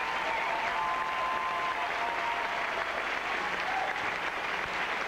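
Theatre audience applauding steadily, with a few voices calling out over the clapping.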